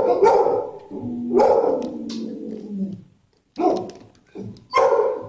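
Dogs barking in a shelter kennel: a run of loud barks, with a longer call that slides slowly down in pitch between about one and three seconds in.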